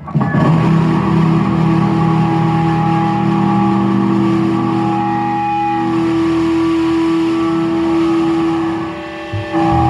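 Distorted electric guitar holding one loud chord that rings on steadily, starting suddenly and dipping briefly near the end before swelling back.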